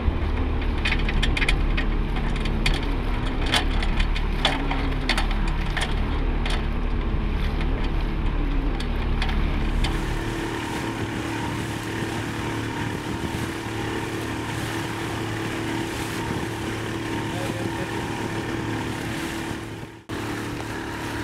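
A sailboat's motor running steadily under way, with wind and water noise. About halfway through the engine note changes: the deep low rumble drops away and a steadier, higher tone takes over.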